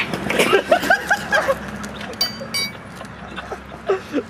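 Brief wordless vocal exclamations from men, then two sharp metallic clinks about two seconds in, each with a short high ringing.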